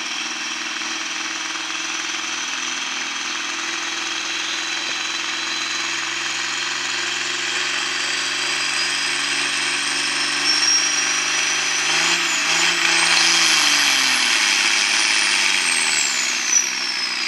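John Deere farm tractor's diesel engine running hard under load while pulling a sled, a steady drone with a high whine above it. About twelve seconds in the engine note wavers. The whine then climbs, and the engine's pitch drops as it lugs down, the whine sliding down with it near the end.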